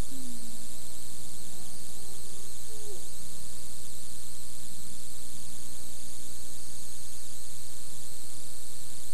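Steady electrical hum under an even hiss, the background noise of an old off-air VHS tape recording, with no speech.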